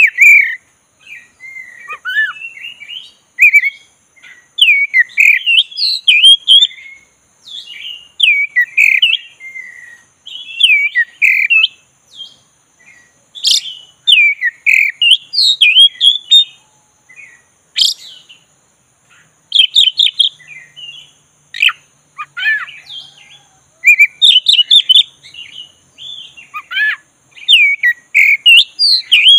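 Black-breasted oriental magpie-robin singing its continuous rolling song: a long run of varied whistled phrases and chirps, with a few sharp clicking notes and short pauses between phrases.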